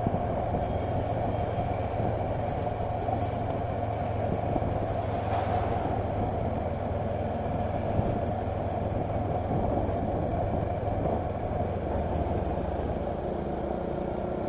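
Kawasaki Versys motorcycle being ridden at low speed, its engine and road noise making a steady, unbroken rumble.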